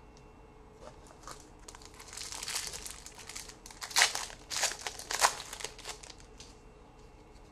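A trading-card pack wrapper being torn open and crinkled by hand, a stretch of crackling with a couple of sharper rips about halfway through.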